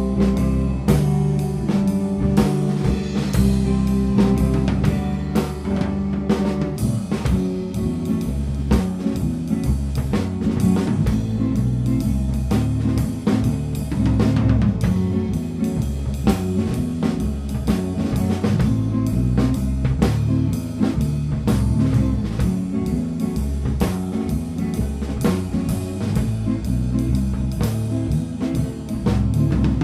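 Live instrumental rock band playing: electric guitar, bass guitar and a drum kit, no vocals, in a rough mix of drums and live scratch tracks.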